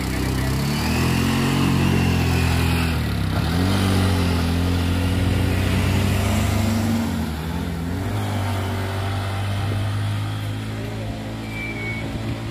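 Auto-rickshaw engine revving as it pulls away, its pitch rising and falling, then running at a steady drone as it drives off.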